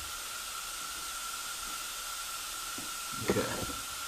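Steady background hiss with a faint steady tone, broken about three seconds in by one short knock: a first light hammer tap on a flat-ended drift set against a seized brake caliper piston clamped in a bench vise.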